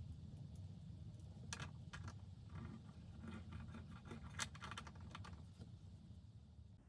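A small plastic Kinder Surprise toy being handled, its parts pressed together and the figure set down on a wooden tabletop: a scattered run of light clicks and taps starting about a second and a half in and ending about five and a half seconds in.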